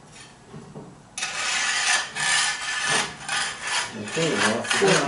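Loud, rough scraping over the concrete shop floor, starting abruptly about a second in and going on in uneven strokes, as something heavy is moved into place.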